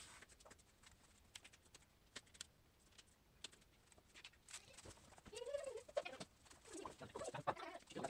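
Faint, irregular knife taps of onion being chopped on a plastic cutting board. From about five seconds in, a wavering, cooing vocal sound rises and falls and grows louder toward the end.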